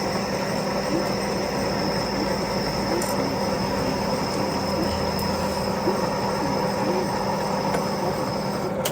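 Metal lathe running steadily with a constant whine and hum, cutting off suddenly near the end.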